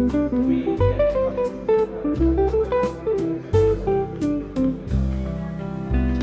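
Background music: a guitar playing a plucked melody over a steady bass line.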